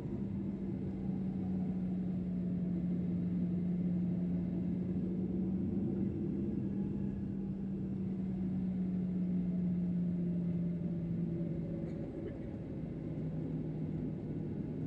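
Cabin noise of a Boeing 737-800 with its CFM56-7B jet engines running at low power: a steady rumble carrying a humming tone that sinks slightly in pitch about two thirds of the way through.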